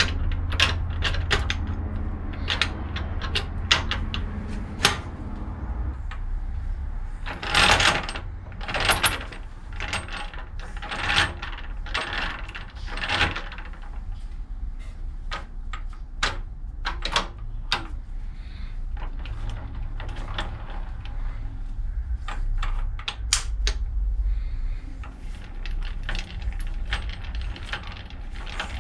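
Steel gears of an Archdale horizontal mill's gearbox being handled and slid onto their splined shafts: many sharp metallic clinks and clicks, with a few longer rattling metal-on-metal slides in the middle.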